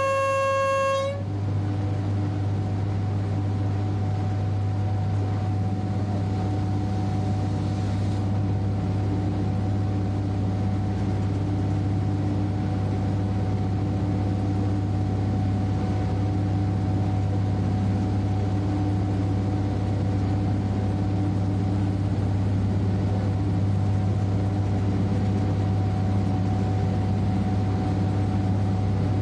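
A train horn holds one steady note, then cuts off about a second in. After it comes the train's steady running drone as heard from the driver's cab, a strong low hum with a few steady tones over it.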